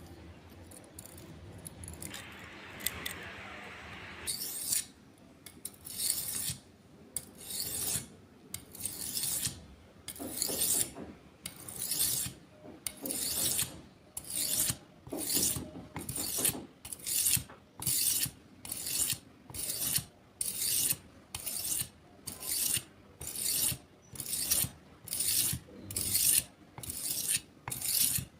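A blade being sharpened with repeated scraping strokes against an abrasive, in a regular rhythm of roughly one stroke a second, after a few seconds of quieter rubbing.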